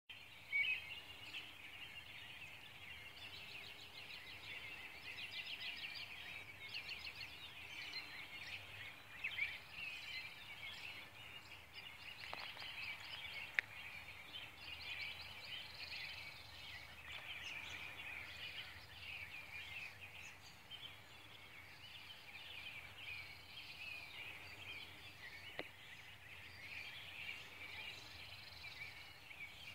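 Dawn chorus of many songbirds chirping and trilling together, faint and continuous, with a few brief clicks, the first just after the start.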